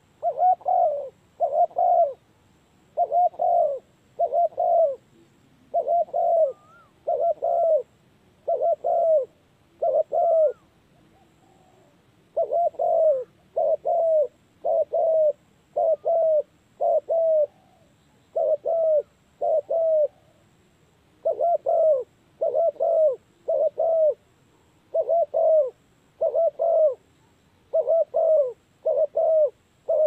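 Spotted dove cooing: a long, regular run of low coos grouped in twos and threes, with a short break about eleven seconds in.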